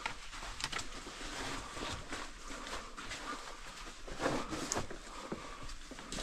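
Scattered scuffs, scrapes and small knocks of a person climbing down rock.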